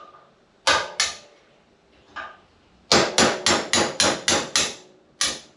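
Hammer tapping on a propshaft universal joint, knocking at the C-clip that holds a bearing cap in. Two sharp metallic taps, a pause, then a quick run of about seven taps at roughly four a second, and one more near the end.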